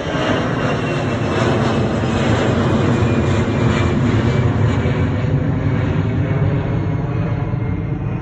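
Jet airliner's engines at takeoff power, a loud rumble that swells to a peak about halfway through and then fades as the plane climbs away.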